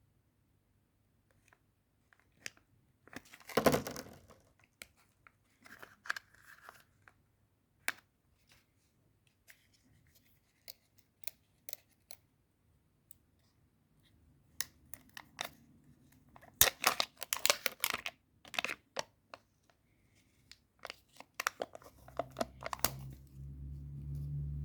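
Foil wrapper of a Kinder Surprise egg being torn and crinkled by hand, in scattered bursts with light ticks and taps between: one burst about four seconds in, a longer spell of crinkling around the middle, and more near the end. A low hum comes up near the end.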